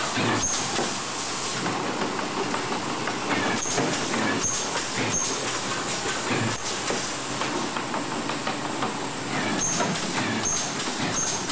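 RJE Magellan LD automatic corrugated boxmaker running: a steady mechanical hiss and clatter, with repeated clicks and short high chirps about every second.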